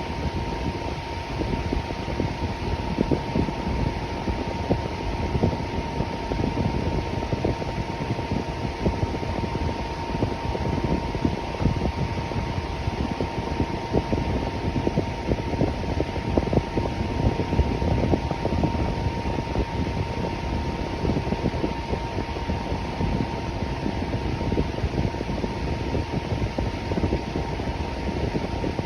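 Electric fan running steadily: an even whooshing rush of moving air, strongest in the low end, with a faint steady hum.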